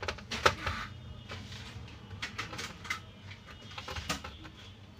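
Scattered clicks and taps of a small screwdriver working screws in a laptop's plastic bottom case, the sharpest about half a second in and another near four seconds, over a low steady hum.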